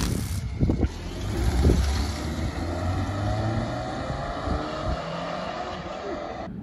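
A car engine running, swelling to its loudest about two seconds in and then running steadily.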